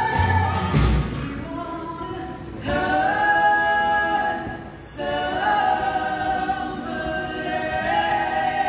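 Several voices singing close harmony in long held notes, almost a cappella, heard live from the audience. The bass and drums drop out about a second in, and there are two short breaths between phrases.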